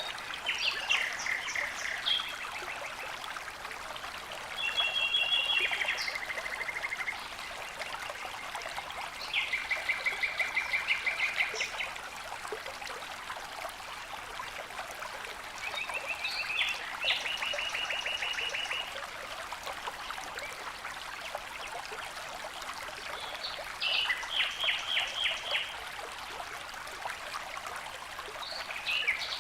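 Steady rush of flowing water from a waterfall or stream, with a songbird singing five short trilled phrases of fast repeated notes over it.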